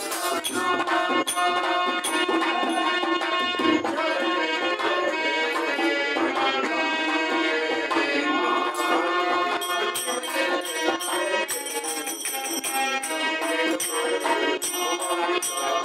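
Instrumental folk-devotional music: a harmonium playing a sustained melody over a steady dholak drum beat, with jingling metal percussion.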